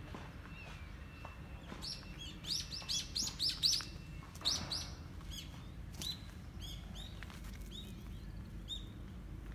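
Small birds chirping: a quick run of about six loud, high chirps around three seconds in, then a steadier series of shorter chirps about two a second.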